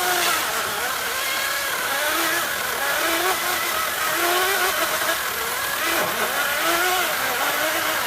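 Ryobi 40-volt battery-powered chainsaw cutting into a thick log. The motor and chain whine holds steady, its pitch wavering up and down as the chain takes the load.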